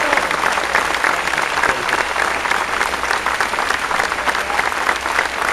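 A large crowd applauding steadily: the dense, even clatter of thousands of hands clapping at once.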